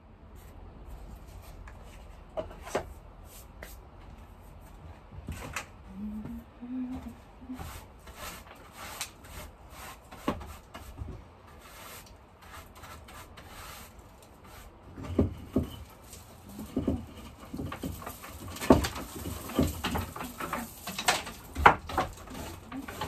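Irregular knocks, clicks and rustling of things being handled during greenhouse tidying, getting busier and louder in the second half.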